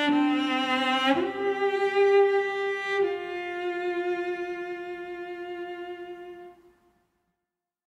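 Slow lullaby melody on bowed strings, a few long held notes that fade out near the end, leaving silence.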